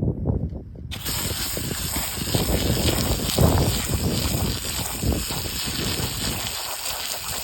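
Low-pressure softwash spray nozzle on a hose, hissing steadily as it sprays cleaning solution onto a shingle roof; the hiss starts abruptly about a second in. Underneath is an irregular low rumble.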